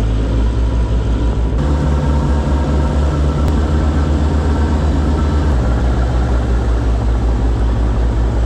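Boat engine running with a loud, steady low drone that shifts slightly in pitch about one and a half seconds in and again about five and a half seconds in.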